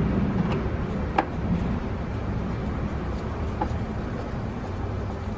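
A few faint clicks and taps of a T25 Torx driver and gloved hands on the plastic air filter housing, the sharpest a little over a second in, over a steady low background rumble.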